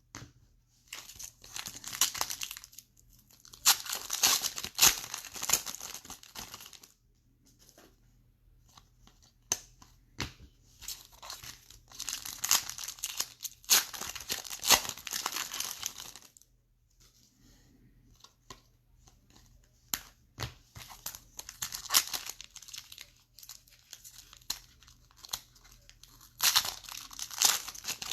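Foil wrappers of 2019 Optic baseball card packs being torn open and crinkled, in about five bursts, with small clicks and taps of cards being handled in between.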